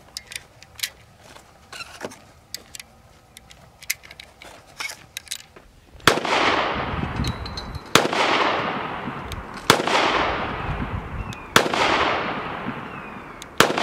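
Small metallic clicks of 5.7x28mm cartridges being pressed one by one into a pistol magazine, then a Ruger-57 pistol firing five single shots about two seconds apart, each with a long echoing tail.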